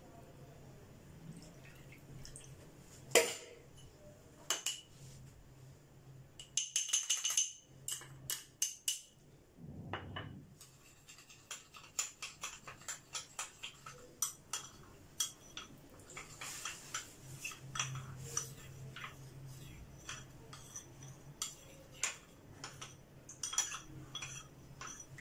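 Metal spoon clinking and scraping against a small glass bowl while custard powder is stirred into milk to a paste, with quick runs of light taps. A low steady hum sits underneath.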